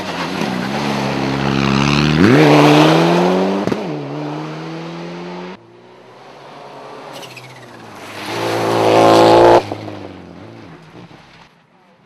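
Two rally cars passing one after the other at full throttle. The first engine climbs sharply in pitch as it revs out. The second rises to the loudest point near the end and then cuts off suddenly.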